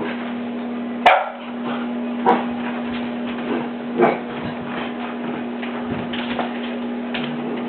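Cavalier King Charles Spaniel puppy barking at his own reflection: three sharp barks, the first about a second in and the others roughly a second apart, with fainter sounds between, over a steady low hum.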